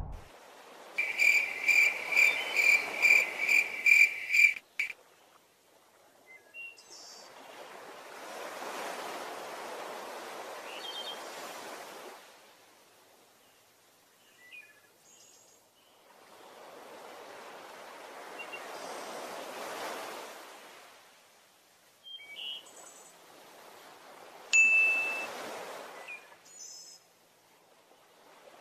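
A quick run of about ten bright ringing pings, about three a second, in the first few seconds. Then ocean waves washing in and out in slow swells, one every eight seconds or so, with a few short bird chirps between them.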